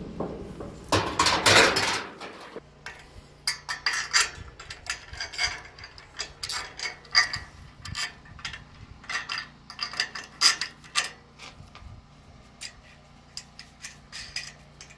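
Ratchet strap ratchet and its metal fittings being worked onto a steel mounting bracket: a run of irregular sharp clicks and clanks. About a second in, a loud noisy rush lasting a second or two.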